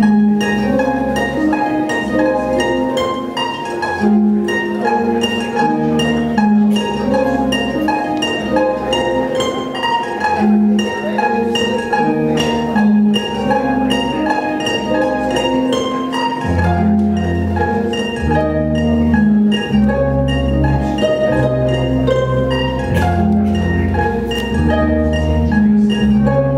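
Lyon & Healy Concert Grand pedal harp, amplified and played through effects: plucked notes layered in a steady, repeating looped pattern. Deep bass notes join about two-thirds of the way in.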